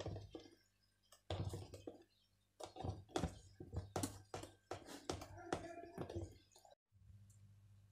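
Hand whisk stirring thick cake batter in a plastic bowl, making quick irregular light taps and clicks against the bowl. The tapping stops abruptly near the end, leaving a low hum.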